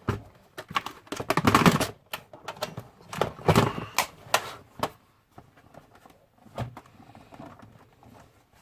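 Irregular plastic clicks and clatter as an Acer Aspire desktop's case parts are handled and pried at, with bursts of rapid clicking in the first few seconds, then only a few scattered clicks.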